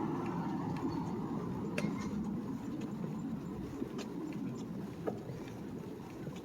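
City street ambience: a steady low traffic rumble that slowly fades, with a few scattered light clicks and taps.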